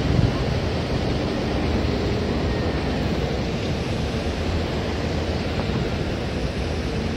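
Steady outdoor noise: wind rushing across a phone microphone over a constant low rumble of road traffic.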